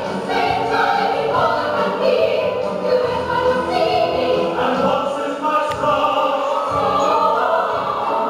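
A group of children singing together with music, a choral stage number.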